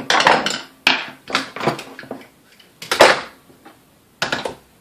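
Metal hand tools clattering and clinking as they are rummaged through, picked up and set down on a workbench: a string of sharp, uneven knocks, the loudest about three seconds in.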